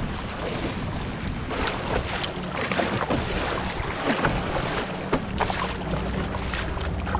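Wind buffeting the microphone over rough water, with scattered splashes as a canoe is paddled through the choppy waves of a tidal bore.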